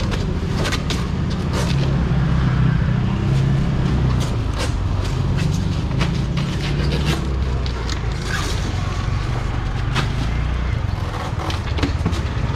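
A steady low motor rumble, with many scattered clicks and knocks from handling goods at a seafood stall.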